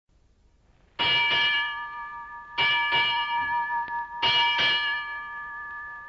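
A ship's bell struck six times in three pairs, about a second and a half apart, each pair ringing on and fading before the next.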